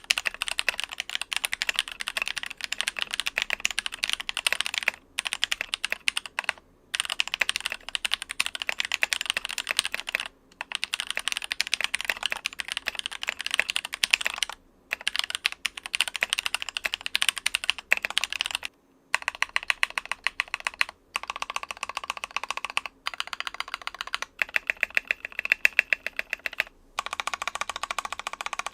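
Fast, continuous typing on a budget hot-swap mechanical keyboard with linear switches, with a short pause every few seconds. Switches and keycaps are swapped between two setups in this test (CIY EVO-RED linears with DSA caps, and Jwick black linears with Taihao Cubic caps), and the key sound changes to a lower, fuller clack about two-thirds of the way through.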